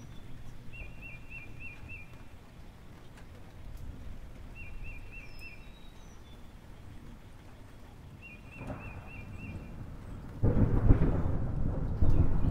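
Diced potatoes and onion frying in a pan and stirred with a spatula, a loud, deep noisy rustle that starts abruptly about ten seconds in. Before that the sound is low and steady, with a short high trill three times, a few seconds apart.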